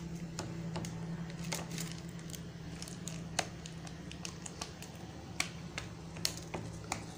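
Knife scoring light cutting lines into a tray of jaggery peanut-and-chickpea brittle (gur gachak) that has cooled but is not yet hard: irregular crisp clicks and scrapes as the blade works through the nuts and taps the sheet beneath. A low steady hum runs underneath.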